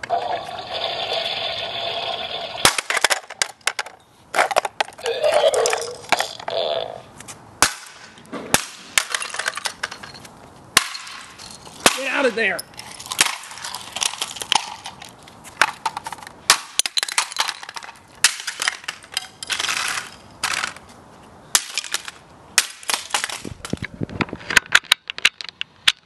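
A talking toy toilet plays a short electronic voice clip when pressed. Then comes a long run of sharp, irregular cracks and knocks as the plastic toy is smashed apart, with a sound dropping in pitch about twelve seconds in.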